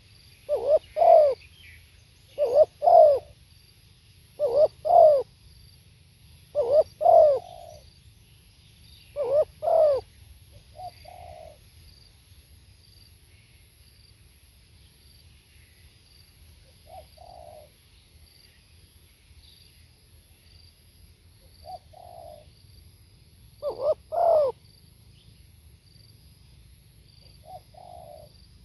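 Spotted dove cooing: loud two-part coos about every two seconds for the first ten seconds, then fainter, sparser coos, with one more loud double coo about 24 seconds in.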